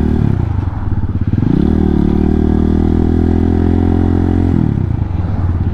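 Hawk 250's single-cylinder four-stroke engine, fitted with an aftermarket JFG exhaust, running under way. The engine note falls about a quarter second in, climbs again about a second and a half in and holds steady, then falls off again near the end.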